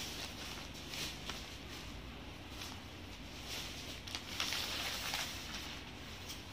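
Jute georgette saree fabric rustling and swishing as it is shaken out and spread by hand, with a longer, louder swish about four seconds in.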